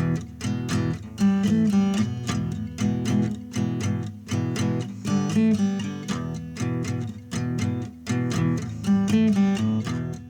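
Background music: acoustic guitar strumming chords in a steady, even rhythm.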